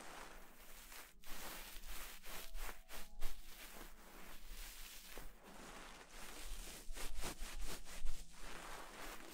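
Fingers rubbing and stroking a white fluffy faux-fur tail close to the microphone: soft rustling and scratching with short, sharper scrapes here and there.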